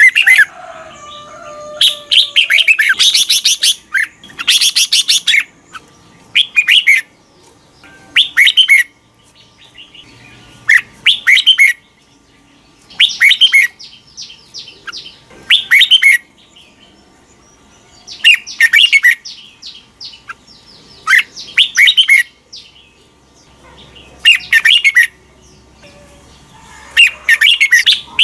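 Red-whiskered bulbul singing: short phrases of quick warbling notes, repeated about every two to three seconds with brief pauses between.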